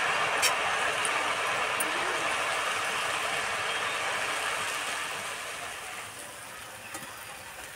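Soaked sago pearls deep-frying in oil in a karahi, a steady sizzle that dies down over the second half. There is a faint tick about half a second in and another near two seconds.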